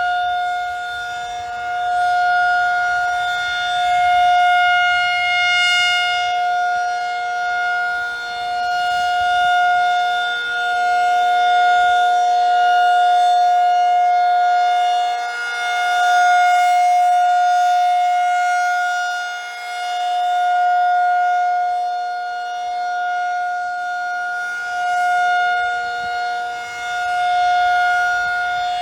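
Federal Signal 2001-SRN rotating outdoor warning siren sounding a steady alert tone at one unchanging pitch. Its loudness swells and fades every few seconds as the rotating horn sweeps past.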